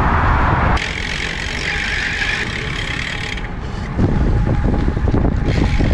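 Wind buffeting the microphone and road noise while riding a bicycle. The noise drops suddenly about a second in and rises again with low rumble about four seconds in.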